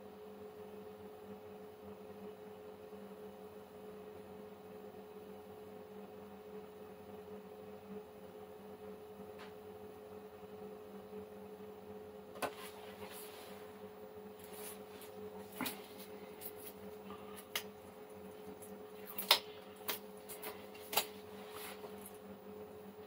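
Steady electrical hum with a few fixed tones. About halfway through, a scattered series of sharp clicks starts, irregularly spaced, with the loudest near the end.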